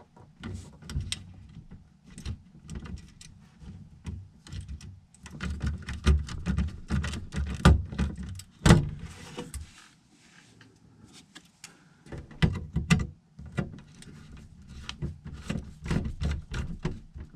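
Hands working on a furnace control board and its wiring: irregular clicks, knocks and rustling as wires and connectors are handled, with a couple of sharper knocks about halfway through.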